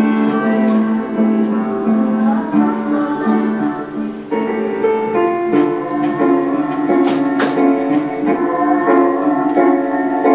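Recorded excerpt from a women's chorus music therapy session: music of held pitched notes with instrumental accompaniment, the notes changing every half second to a second, and a couple of sharp clicks about seven seconds in.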